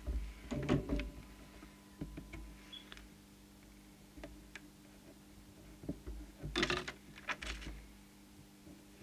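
Light clicks, taps and rustles of a hand working a small trimming tool on the circuit board of an open CB radio, tuning the transmitter coils for output power. The handling noise comes in two bunches, about a second in and again around seven seconds in, over a faint steady hum.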